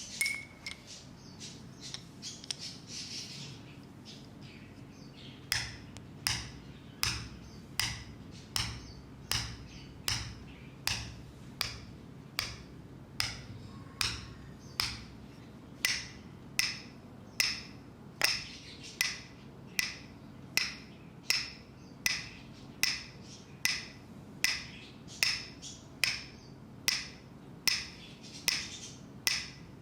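Steady rhythmic tapping: sharp, bright taps about two a second, starting some five seconds in and keeping an even pace. A short hiss and a few quicker clicks come at the very start.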